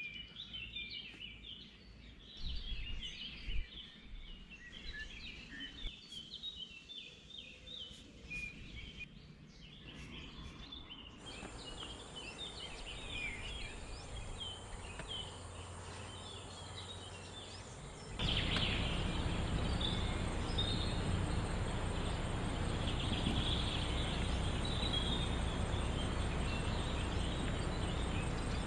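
Wild birds chirping and calling in many short notes over steady outdoor background noise. The background noise gets suddenly louder about two-thirds of the way through, and a thin high whine runs under the second half.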